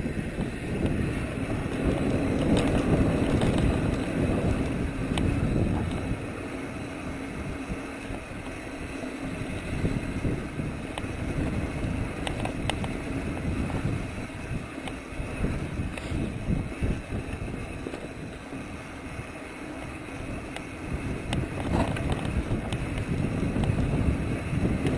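Wind buffeting the microphone of a camera on a mountain bike rolling down a dirt trail, mixed with the rumble of tyres on dirt and scattered clicks and rattles from the bike. The rush swells and fades as the speed changes, louder a couple of seconds in and again near the end.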